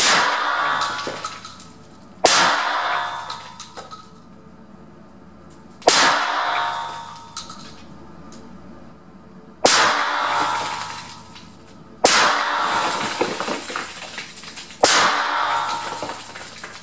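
Six shots from a 12-gauge shotgun firing slugs, irregularly spaced two to four seconds apart, each with a long echoing tail.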